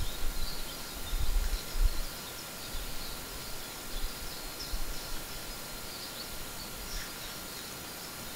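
Faint, scattered chirping of distant songbirds over a steady outdoor hiss from the camera trap's microphone, with a few low rumbles in the first two seconds.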